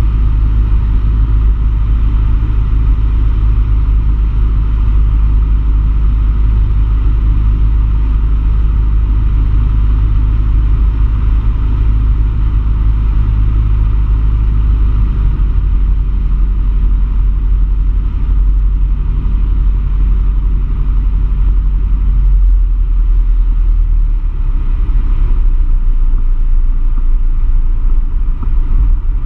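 A light aircraft's piston engine and propeller, heard from inside the cockpit as a steady, loud drone on final approach. Its low note shifts about halfway through as power comes back for the landing, and a deeper rumble builds near the end as the aircraft comes onto the runway.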